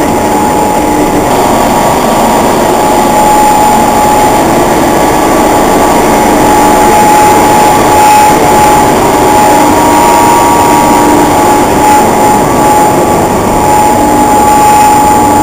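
Feed mill machinery running around an Andritz Sprout Matador feed expander: a loud, steady mechanical din with a steady whine over it.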